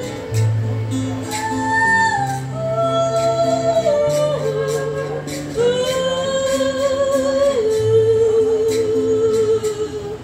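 A woman singing to her own acoustic guitar accompaniment, the melody moving in long held notes, the later ones wavering with vibrato.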